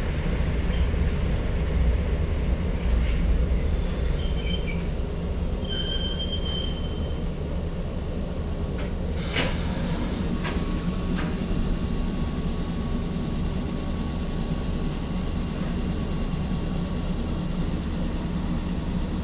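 Kotoden 1200-series electric train heard from inside the front car: a steady low rumble and hum, with a few short high wheel or brake squeals in the first half and a brief loud hiss about nine seconds in, followed by a steady mid-pitched hum.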